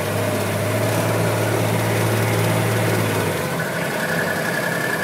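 An engine running steadily with a low, even hum. About three and a half seconds in, the low hum drops away and a steady higher whine takes over.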